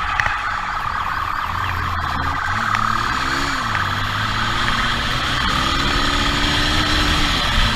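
Motorcycle engine running hard during a pursuit, its pitch rising and falling several times, with wind rush on the microphone and a siren sounding over it.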